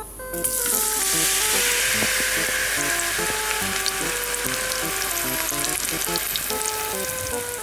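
Flour batter with chikuwa and green pepper poured into a frying pan of hot oil, setting off a loud, steady sizzle about half a second in.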